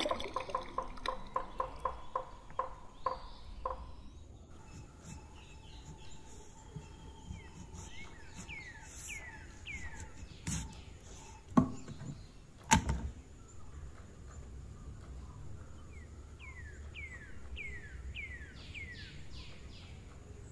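Water dripping and splashing into a clay pot, quick repeated drops that slow and stop by about four seconds in. Then a bird calls in short runs of falling chirps over a faint steady high whine, and two sharp knocks around the middle as a knife cuts through a green orange onto a wooden board.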